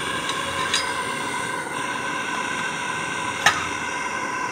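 Burner firing steadily into a steel pipe heat exchanger: a constant rush with several steady whining tones. Metal clicks as a twisted steel turbulator strip is handled and slid into the hot pipe, a light one under a second in and a sharper one about three and a half seconds in.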